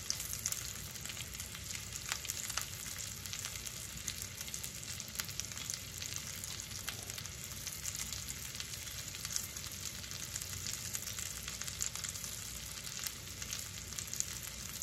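Wild-game burger patties frying in fat in a cast-iron skillet: a steady sizzling hiss with many small pops and crackles.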